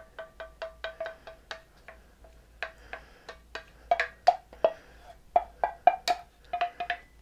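Rapid knocking, about four to five a second, each knock with the same short ringing note. The knocks are light and even at first, then louder and less regular from about four seconds in.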